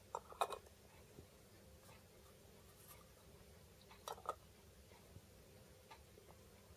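Quiet room tone with two short clusters of small clicks, one at the very start and another about four seconds in.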